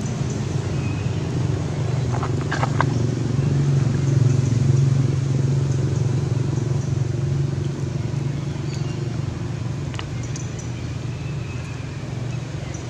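A steady low motor drone, like an engine running nearby, that swells slightly about four to five seconds in, with a few faint clicks a couple of seconds in.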